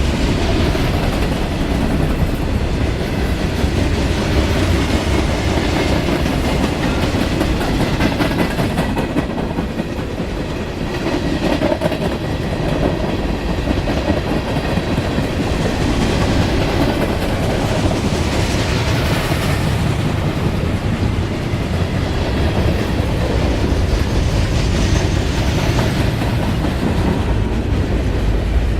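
Norfolk Southern freight train's cars rolling steadily past at close range, wheels clicking over the rail joints.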